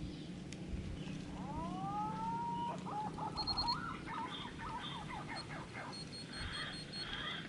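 Wild birds calling: a rising whistle about a second and a half in, then a run of warbling notes, and near the end a quick series of short high chirps.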